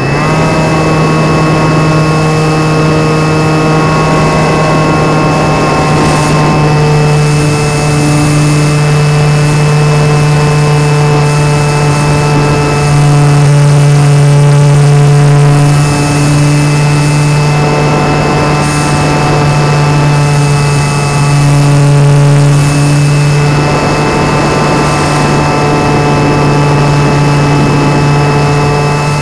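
Motor and propeller of an RC airplane heard close up from the camera on board, a steady pitched drone in flight that swells slightly twice, with a hiss of air rushing past.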